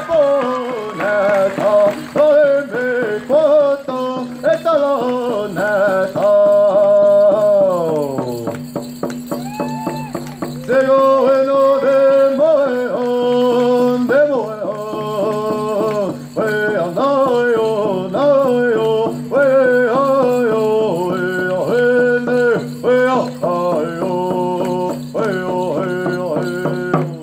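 Music for a hoop dance: a voice singing phrases that glide downward over a steady low drone.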